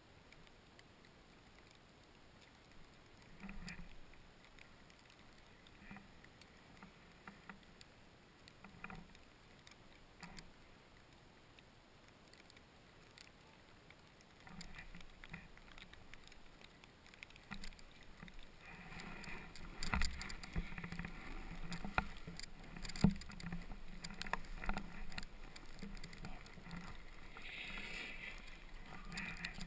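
Snowboard sliding over snow, heard through a helmet-mounted camera. At first there are only faint occasional rustles while the rider stands still. About halfway in, a steady hiss of the board running on snow sets in, with scrapes and knocks as the rider carves down the run.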